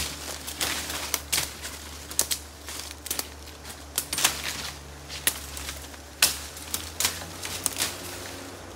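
Machete blows cutting through undergrowth and brush: a string of sharp, irregular cracks and snaps, roughly one to three a second.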